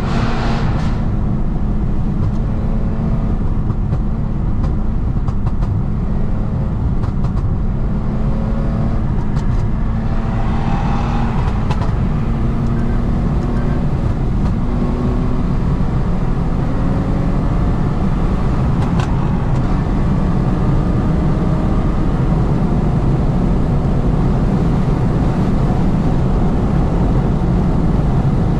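Lexus IS250's 2.5-litre V6 pulling steadily under way, heard from inside the car with tyre and road rumble. The engine drone climbs slightly in pitch over the first half.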